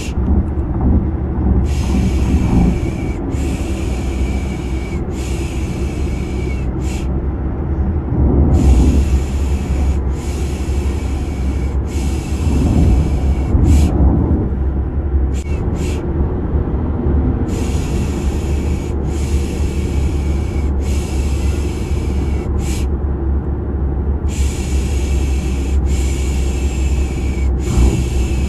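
Steady low car-engine rumble, as heard riding inside a car, under rhythmic 'piş piş' shushing. The shushing comes as three long shushes of about a second each and then a short one, repeating after a pause. It is a white-noise lullaby for settling a baby to sleep.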